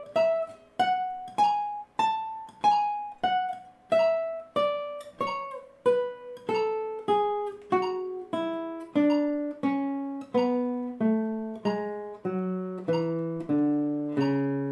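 Classical guitar playing a three-octave A major scale one note at a time at a slow, even pace. It turns at the top note and then runs down step by step to the low A.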